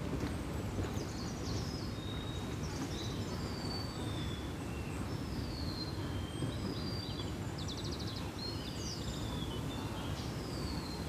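Birds chirping and whistling, short calls and downward-sliding whistles with a quick trill about eight seconds in, over a steady low background rumble.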